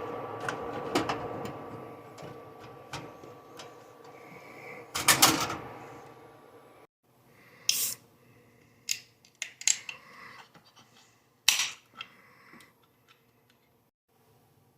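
Scattered sharp clicks and knocks, with a louder clatter about five seconds in, thinning out to near silence in the last couple of seconds.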